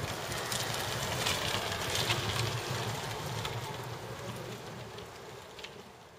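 Enclosed electric-assist recumbent trike rolling away across asphalt: a low rumble of tyres and drivetrain with a few light clicks, fading out over the last couple of seconds.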